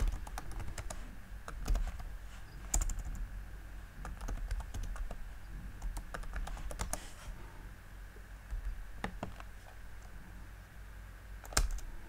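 Typing on a computer keyboard: keystrokes clicking in short irregular runs with pauses between them.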